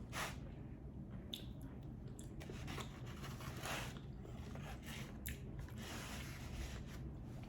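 A person chewing food close to the microphone, with a few sharp mouth clicks and soft wet sounds scattered through.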